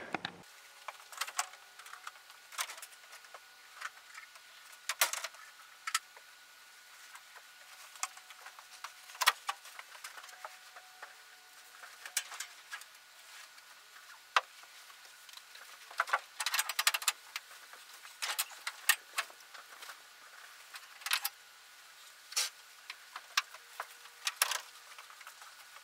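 Scattered light clicks, clinks and rustles of someone handling gear and a hay net while feeding horses, heard at a distance, busiest a little past the middle, over a faint steady hum.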